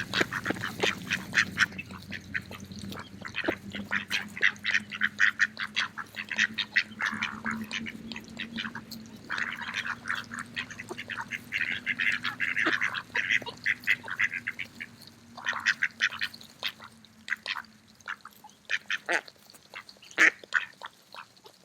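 Mallard ducks quacking and calling as they feed, with many short, quick clicks throughout.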